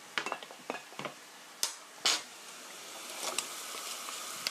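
A metal spoon and wooden spatula clacking against a frying pan, a few separate knocks, then the sauce in the pan sizzling louder from about three seconds in as the stirring begins.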